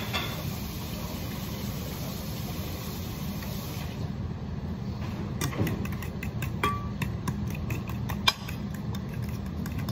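A steady low background hum. From about halfway, a utensil clinks and scrapes against a stainless steel mixing bowl as an egg is stirred into cottage cheese, with one sharper clink near the end.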